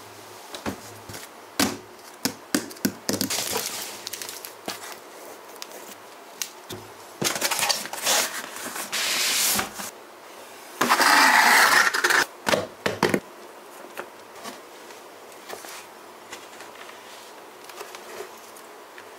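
Packaging being handled as a drone box is opened and unpacked: scattered clicks and knocks with stretches of rustling and scraping of cardboard and plastic, the loudest a rustle of about a second and a half some eleven seconds in.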